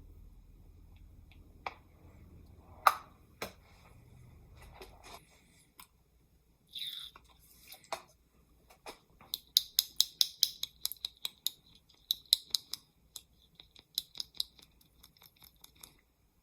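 Paint being mixed with thinner for airbrushing: a few sharp taps of small bottles and tools, then quick runs of small ticking clicks, about four a second. A low hum stops about five seconds in.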